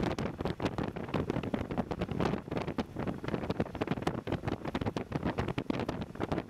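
Passenger train running at speed, heard from a carriage window: a steady rumble of wheels on the rails, with uneven wind buffeting on the microphone.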